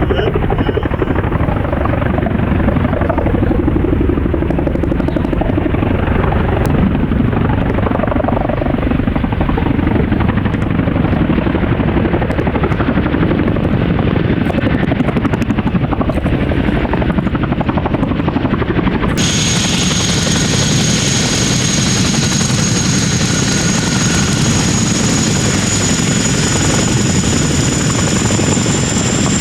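Boeing CH-47D Chinook tandem-rotor helicopters flying low, with heavy, steady rotor and turbine noise. About two-thirds of the way through the sound changes abruptly, and a high, steady turbine whine comes in over the rotor noise, creeping slightly up in pitch.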